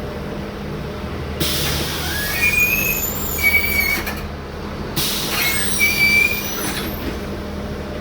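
Mercedes-Benz O-500M city bus heard on board: a steady engine hum, with two bursts of hissing and high squealing, the first about a second and a half in and the second about five seconds in.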